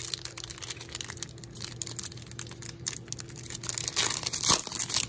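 Foil wrapper of a Pokémon Shining Fates booster pack crinkling as it is handled and torn open, with a louder stretch of crackling and tearing about four seconds in.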